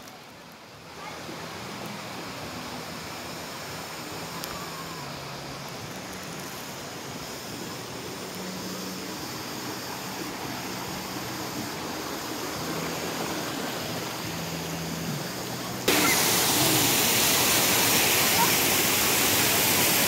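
Waterfall: a steady rush of falling water that slowly grows louder, then becomes suddenly much louder about sixteen seconds in.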